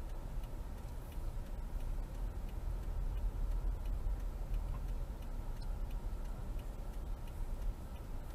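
A car's turn signal ticking steadily over the low rumble of the engine and tyres inside the cabin as the car drives slowly.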